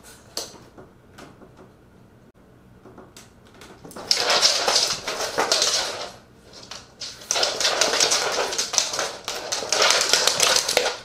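Two loud outbursts of animal commotion, one about four seconds in lasting some two seconds and another from about seven seconds on, after a quiet start with a few light clicks.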